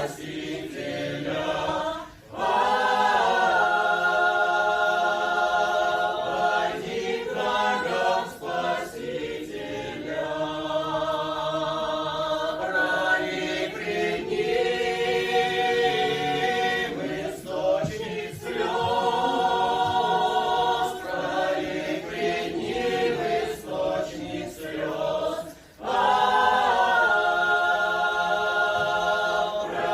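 A folk choir singing in several voices, holding long chords in phrases with short breaks between them.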